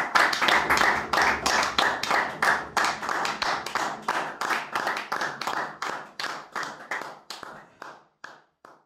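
Applause from a small audience, heard as distinct hand claps that thin out, fade and stop near the end.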